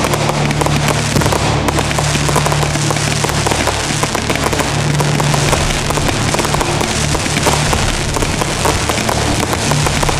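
Ground fireworks crackling: a wall of crackling fountains and sparks gives a dense, continuous rapid crackle. Low sustained music plays underneath.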